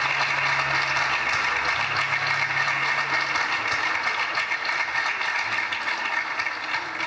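Audience clapping steadily, dense and continuous, easing off a little near the end.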